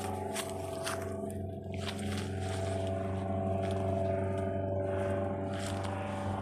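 An engine running steadily with an even, droning hum, with scattered short crackles or rustles over it.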